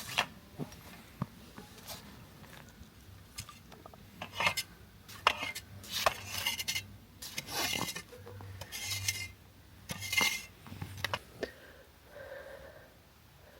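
Cookware and utensils being handled: scattered sharp clinks and knocks with short scraping rubs in between, thinning out near the end.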